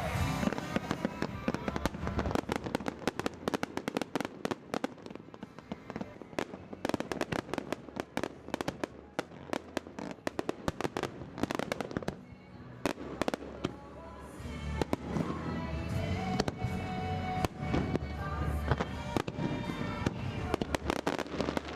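Fireworks display: a dense run of sharp crackling pops and bangs from bursting shells, with music playing alongside that grows more prominent about two-thirds of the way through.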